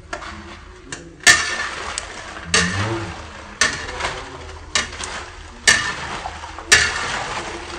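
Kerupuk bawang crackers frying in hot oil in a wok: the oil sizzles in a sharp burst about once a second, each burst dying away before the next.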